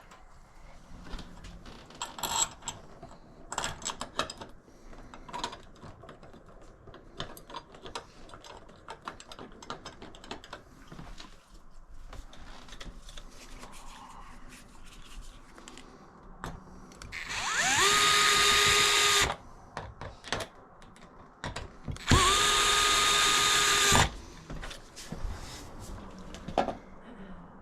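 Power drill run twice, a few seconds apart: each time it spins up with a rising whine and holds a steady high pitch for about two seconds before stopping. Before that, scattered light clicks and knocks of hardware being handled.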